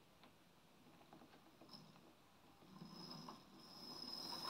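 Near silence at first; about four seconds in a faint whir starts as an N gauge Fleischmann model steam locomotive begins running in reverse.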